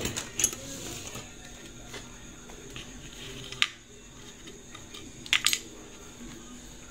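Small sharp clicks of hard plastic and metal as a Swatch chronograph watch and a plastic parts tray are handled: one about half a second in, one near the middle, then a quick pair about two-thirds of the way through.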